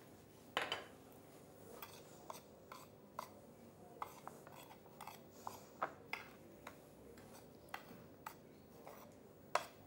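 A metal utensil scraping and tapping on a ceramic plate while flour and breadcrumbs are stirred together into a coating mix: faint, irregular light clicks and scrapes, with a louder knock near the end.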